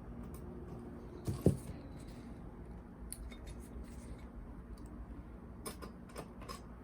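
Small metal clicks and taps from tools and parts being handled while a vintage cassette deck is taken apart, with one louder knock about a second and a half in.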